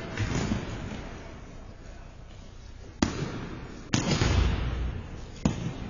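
Sharp knocks that echo around an indoor ice rink as sticks hit a ball and the ball strikes the boards. Three loud hits come in the second half, the loudest about four seconds in, over a low hum of the hall and faint voices.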